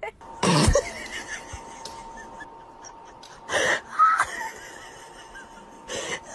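A person laughing in a few short bursts: about half a second in, twice around four seconds in, and again near the end.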